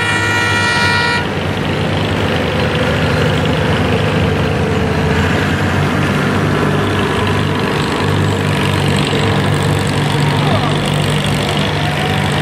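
A horn sounds for about the first second. Then a farm tractor's diesel engine runs steadily at an even pitch for the rest of the time.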